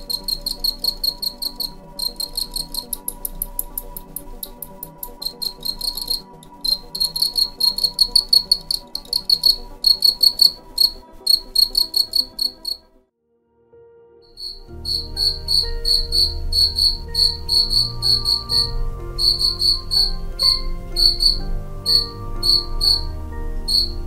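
Male European field crickets (Gryllus campestris) chirping: a steady run of high, pulsed chirps, two or three a second, made by rubbing the forewings together. The chirping breaks off for about a second past the halfway point, then picks up again with a low rumble underneath.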